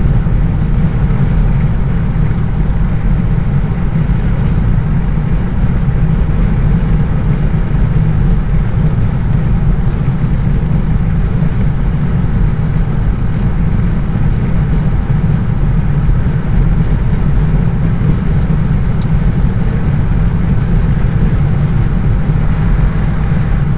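Road noise heard inside a car cruising at highway speed: a steady low rumble of tyres and engine with a lighter hiss of tyres and wind above it.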